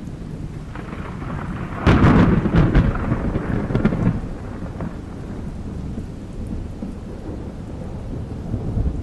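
Thunderclap in a storm: a sudden loud crack about two seconds in, several more cracks over the next two seconds, then a rumble that dies away into a steady low storm noise.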